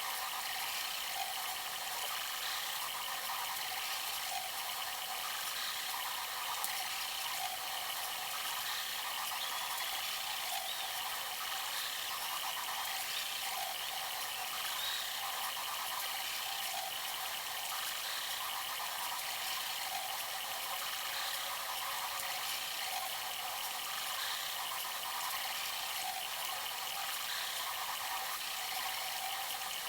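Bambu Lab A1 3D printers printing: a steady mechanical whir and rattle of the stepper motors and moving print heads, with faint short shifts in pitch as the heads change direction.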